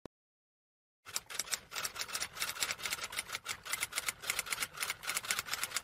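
Manual typewriter typing: a rapid, even run of key strikes that starts about a second in.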